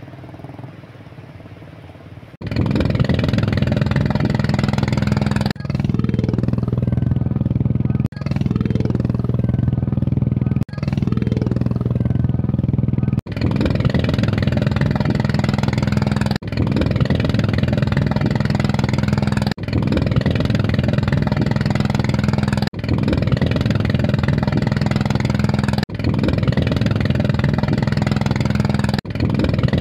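An engine running steadily, starting about two seconds in and broken by abrupt short gaps roughly every three seconds.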